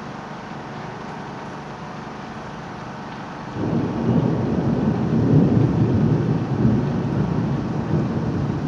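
Steady hiss of heavy rain, then about three and a half seconds in a loud rolling rumble of thunder starts suddenly and goes on, swelling for a couple of seconds before easing slightly.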